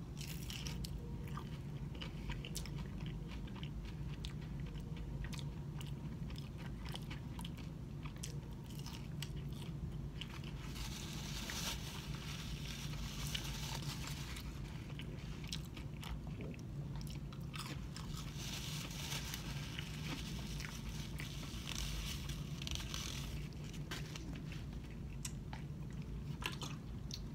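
A person chewing and biting battered fried fish close to the microphone, with small crunches and mouth clicks and denser crackly stretches about halfway through and again a little later. A steady low hum runs underneath.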